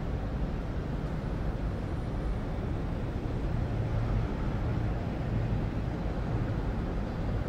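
Steady low rumbling ambient noise, even throughout, with no distinct events.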